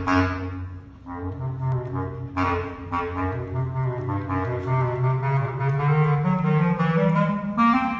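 Bass clarinet playing long, low held notes, with strong attacks at the start and again about two and a half seconds in. The line steps upward in pitch near the end.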